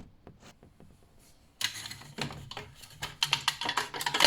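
A metal Swiss Army Volcano flask being handled: a quick run of light clicks and clattering begins about one and a half seconds in and grows louder toward the end.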